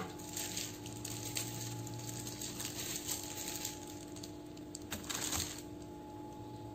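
Quiet kitchen room tone with a steady hum and a few faint clicks. About five seconds in comes a short cluster of knocks ending in a dull thud, as a plastic-wrapped block of beef lung is set down on a wooden cutting board.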